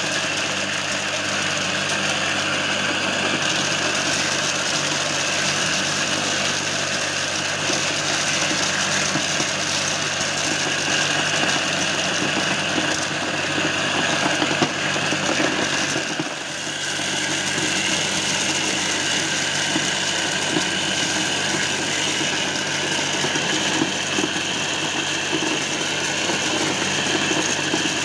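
Homemade mini corn sheller running steadily, its belt driven by a converted water-pump electric motor, with a continuous rattle of kernels being stripped as cobs are fed in. The sound dips briefly about halfway through.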